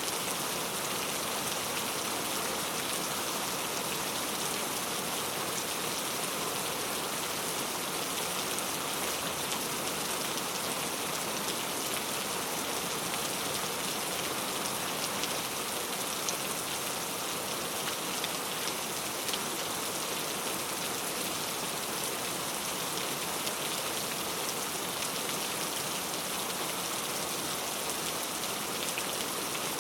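Steady rain falling, an even hiss with scattered drop patter.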